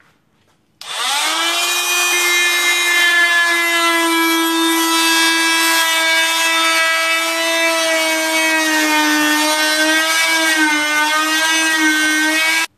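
Oscillating multi-tool cutting through a plastic bucket: a steady buzz that starts about a second in, wavers slightly in pitch near the end and cuts off suddenly.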